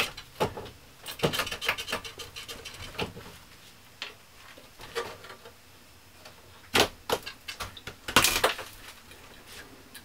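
Irregular knocks, taps and scrapes of wooden and laminate countertop pieces being handled and set down around a cabinet sink opening, in small clusters with the loudest knocks near the end.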